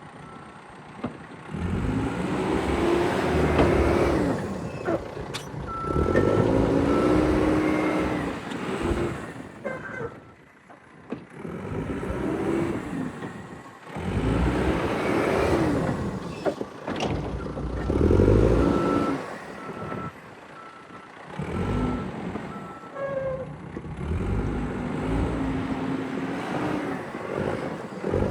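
Caterpillar 420D IT backhoe loader's diesel engine revving up and down in repeated surges as the machine works under hydraulic load. Its backup alarm beeps in stretches when it reverses.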